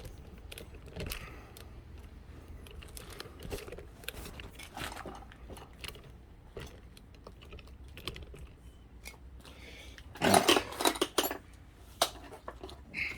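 Light metallic clicks and clinks of tools being handled, such as a wrench and pedal parts, with a louder burst of clatter about ten seconds in.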